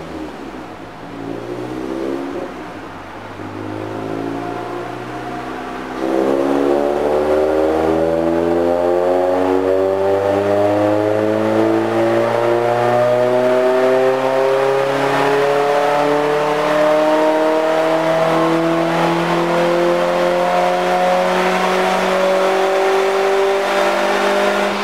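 2010 Mazda3 hatchback's 2.5-litre four-cylinder breathing through an MSDS header and Racing Beat axle-back exhaust, on a chassis dyno. For the first six seconds it runs quieter, then the throttle opens and the exhaust note climbs slowly and evenly as the revs rise under load, until the end.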